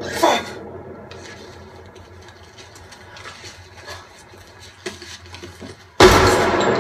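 Film soundtrack played through a home-theatre system with a subwoofer. Just after the start comes a single sharp crack with a falling ring, then a quiet stretch of faint clicks and scuffs. About six seconds in, a sudden loud, sustained rush with deep bass begins.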